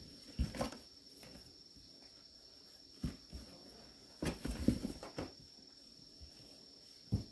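A few soft footsteps and scuffs, the loudest a cluster about two thirds of the way in, over a steady high-pitched whine.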